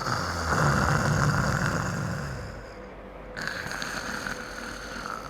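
A sleeping person snoring, demonstrating the snoring of obstructive sleep apnea. Two breaths, each about two and a half seconds long, with a short gap between: the first has a strong low vibrating snore, and the second is a softer, breathier snore.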